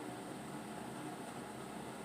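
Steady background hiss of room tone, with no distinct sound standing out.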